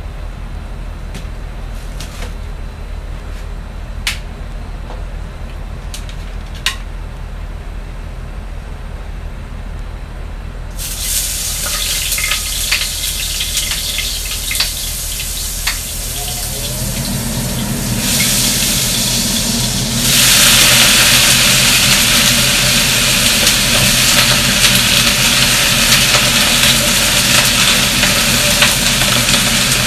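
Kitchen range hood fan running over a gas hob, stepping up in sudden stages to a loud, even hiss that holds from about two-thirds of the way in. A few light clicks of dishes come in the first several seconds.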